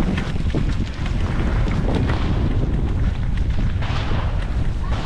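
Wind buffeting the microphone: a loud, steady low rumble with many scattered clicks and rattles over it.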